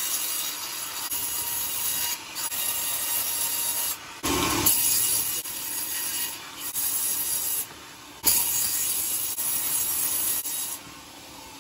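Band-saw mill blade cutting lengthwise through a coconut log: a steady high hiss of the blade in the wood. The level drops and jumps back abruptly several times.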